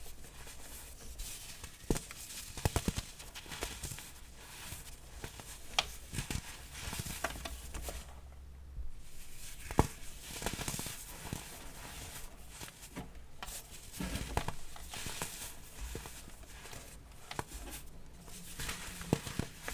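Chunks of baking soda being crumbled and crushed, a dry crunchy crackle with many sharp snaps, pausing briefly about eight seconds in.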